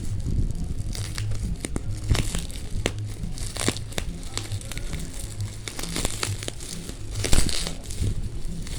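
Plastic packaging of a tempered-glass screen protector crinkling and crackling as it is handled, with many short sharp clicks.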